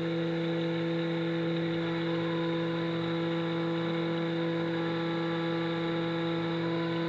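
Haas VF4 CNC mill running, its spindle holding a steady humming whine over a constant machine hiss.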